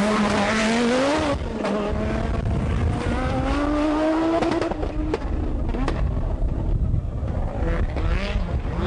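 Audi Quattro Group B rally car's turbocharged five-cylinder engine pulling hard, its pitch climbing through the gears with a drop at each shift, and a few sharp cracks around the middle as it comes off the throttle.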